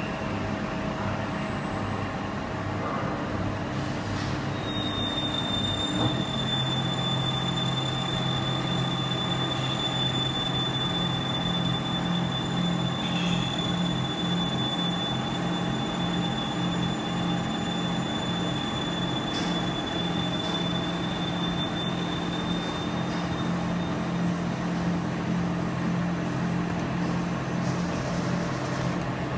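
Schaerer UD 532 CNC lathe running with a long steel shaft in it: a steady machine drone whose low hum changes about six seconds in. A thin, steady high-pitched whine sounds over it from about five seconds in until about two-thirds of the way through.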